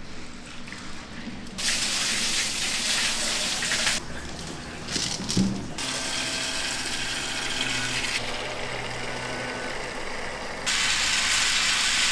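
Water running in three spells of about two seconds each, with a single knock between the first two and a faint steady machine hum underneath.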